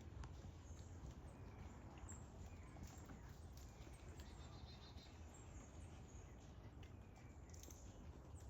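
Near silence: faint outdoor ambience with a steady low background rumble and a few faint, scattered high chirps and ticks.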